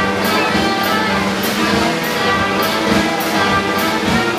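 Circus band music led by brass, with a steady beat marked by cymbal strokes.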